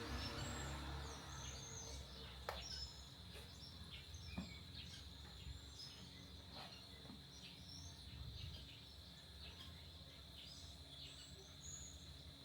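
Faint background of small birds chirping over a steady high insect drone, with a few soft knocks.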